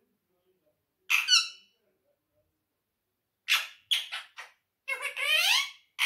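Indian ringneck parakeet vocalising in shrill, high-pitched calls: one call about a second in, a few short chirps around four seconds, then a longer run of chatter near the end.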